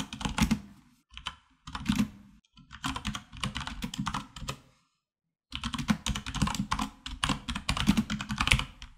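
Typing on a computer keyboard: quick runs of keystrokes with short pauses, and a brief dead gap about five seconds in.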